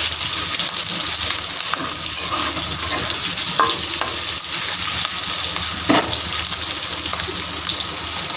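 Chopped onions sizzling in hot oil in a metal kadai, stirred with a spatula that scrapes and knocks against the pan a few times.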